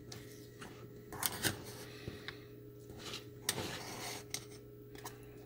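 A metal fork stirring thick cheese grits in a stainless steel saucepan, with scattered light clinks and scrapes against the pot's sides and bottom, over a faint steady hum.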